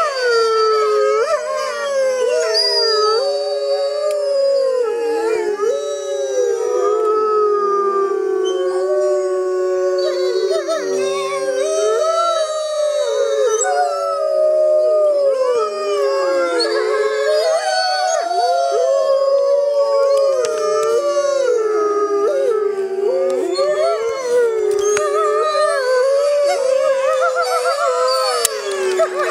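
A pack of gray wolves howling together in chorus: several long howls overlap, rising and falling in pitch, with higher, wavering voices above the lower held howls.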